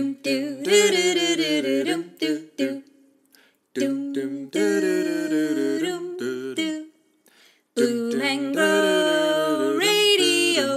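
A voice humming and singing an unaccompanied tune in three phrases, with long held, wavering notes and short pauses between phrases.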